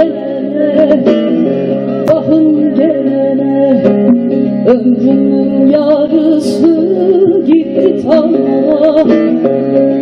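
Bağlama (saz) played in a Turkish folk song: quick plucked notes over steady drone strings, with a wavering, ornamented melody line.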